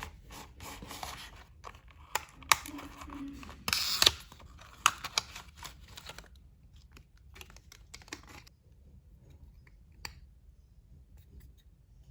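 Packaging being opened by hand: scattered snips, clicks and rustles, with a short loud tearing rip about four seconds in, then only a few light clicks after about eight seconds.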